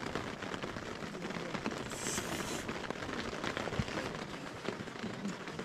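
Steady patter of rain on the tent fabric, with a short hiss about two seconds in.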